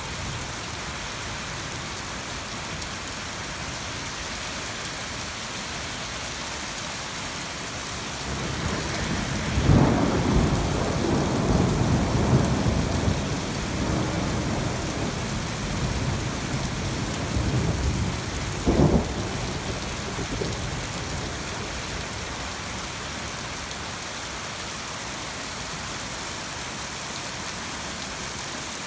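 Steady rain falling, with a long roll of thunder that builds about eight seconds in and rumbles for over ten seconds, ending in a short sharp crack.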